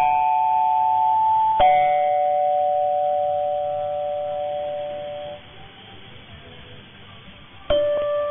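Music received over medium-wave AM radio, dull with no treble: sustained keyboard chords struck at the start and again about a second and a half in, ringing out and fading. A few seconds of faint receiver hiss follow before the next notes come in near the end.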